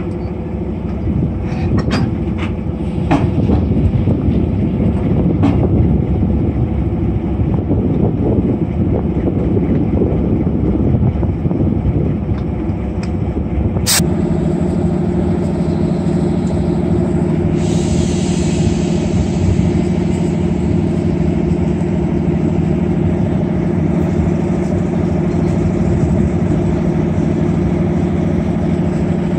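SM42 diesel shunting locomotive running as it moves with a rake of passenger coaches, with a few sharp clicks from the wheels and track in the first half. After a cut about halfway, the engine idles steadily, with a brief hiss of air a few seconds later.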